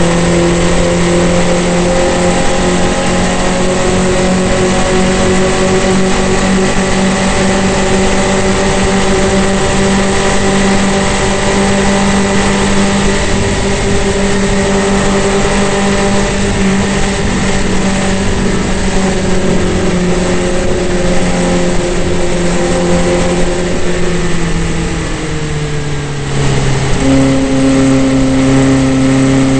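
Onboard sound of a Formula Vee's air-cooled Volkswagen flat-four engine at full throttle, its note slowly rising and then slowly falling, with wind rush over the open cockpit. Near the end it goes briefly quieter as the driver lifts off, then comes back on power at a lower note.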